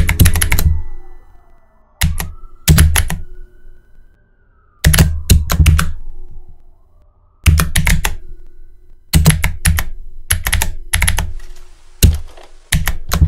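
Computer keyboard being typed on in about seven short bursts of rapid keystrokes, with pauses of a second or so between them. Each keystroke has a heavy low thud.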